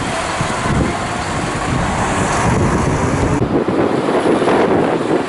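MAN heavy truck diesel engines and tyres passing close by: a four-axle MAN tipper truck drives right past. About three and a half seconds in, the sound cuts to a MAN tractor unit with a curtainsider trailer approaching.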